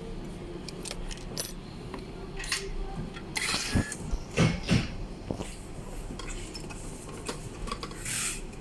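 Scattered clinks, taps and scrapes of a car screen unit's metal case and small parts being handled and worked on, over a steady low hum.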